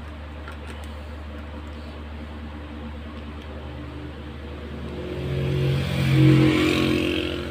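A motor vehicle goes past: its engine sound swells to a peak about six seconds in and then fades, over a steady low background hum.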